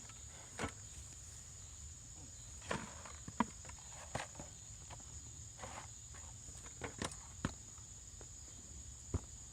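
Irregular scrapes and knocks of a hand digging tool working through potting soil in a potato bucket. Insects chirr steadily and high-pitched in the background.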